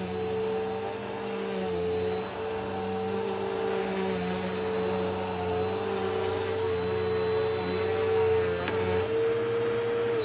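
Bissell upright vacuum cleaner running over carpet with a steady whine over a rumble. About a second before the end the rumble drops away and the whine rises a little, then the motor is switched off and starts to wind down.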